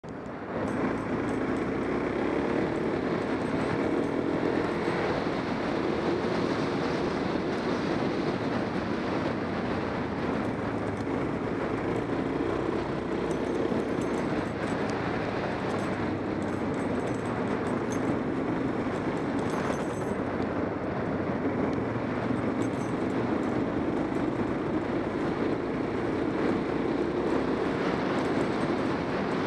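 Motorcycle engine running steadily while the bike is ridden at speed, mixed with wind and road noise, fading in at the start.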